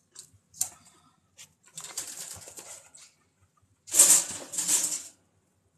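Chinchillas scuffling in a dust-bath pan and wood-shaving bedding: a few short bursts of rustling, the loudest about four seconds in.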